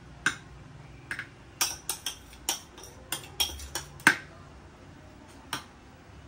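A spoon clicking and scraping against a bowl and a glass baking dish while scooping and spreading a thick mixture: a quick string of sharp knocks, the loudest about four seconds in, with one last tap near the end.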